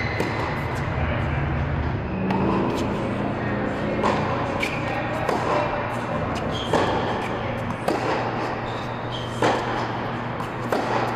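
Tennis rally: sharp pops of rackets striking the ball and the ball bouncing on the hard court, about one every second or so, echoing in a large indoor hall.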